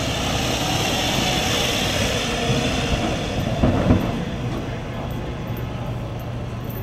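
City street traffic: a steady low rumble of engines under a hiss that fades about two and a half seconds in, with a couple of short thumps just before four seconds in.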